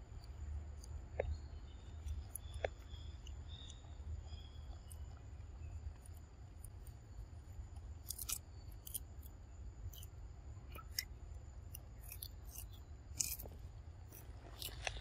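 Young macaque biting and chewing crisp lettuce leaves: scattered sharp crunching clicks that come thicker in the second half, over a steady low rumble.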